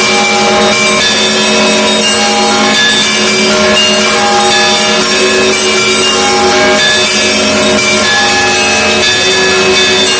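Russian Orthodox church bells ringing together in a loud, continuous peal: many bells of different pitches are struck in quick succession, and their tones overlap and ring on.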